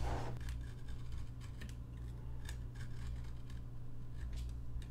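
Scissors snipping off the spare end of a folded cardstock shim: a few short, sharp snips spread through the seconds.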